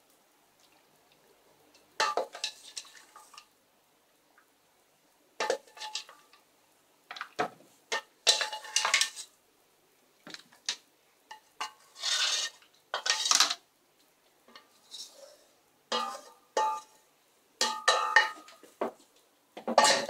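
A wooden spoon scraping and knocking inside a stainless steel saucepan as stones and milk are spooned out into soup bowls, in irregular bursts of clatter with short pauses between.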